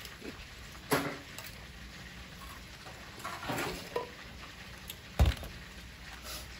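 Scattered clinks and knocks of kitchen utensils and dishes, with a heavier low thump about five seconds in.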